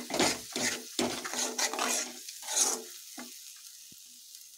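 Steel spoon stirring and scraping thick tomato-onion masala around a metal kadai, the paste sizzling as it fries in oil until the oil separates. The strokes come about three a second and stop about three seconds in.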